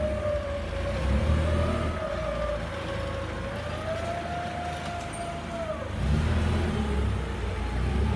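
Hyster S50FT propane forklift running as it drives and manoeuvres, a low engine rumble under a whine that rises and falls with its speed. The rumble grows louder about six seconds in as the whine drops away and then climbs again.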